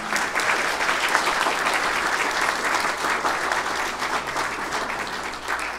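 Congregation applauding, a steady dense clapping that tapers slightly near the end.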